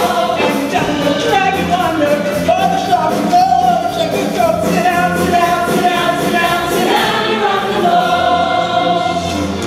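Stage musical number: a male soloist and mixed chorus singing with instrumental accompaniment, with long held notes that waver in pitch.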